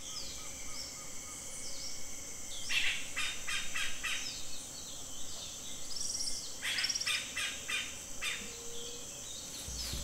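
Tropical rainforest ambience: birds calling, with two bursts of rapid repeated notes about three and seven seconds in, over a steady high-pitched hum.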